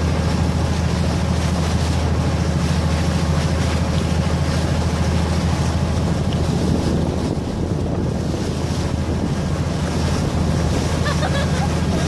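Passenger ferry's engine running with a steady low drone, under wind buffeting the microphone and the rush of water from the boat's wake.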